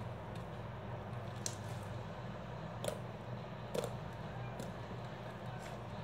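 Hands squishing and stretching homemade slime, with three short wet pops about one and a half, three and four seconds in, over a steady low hum.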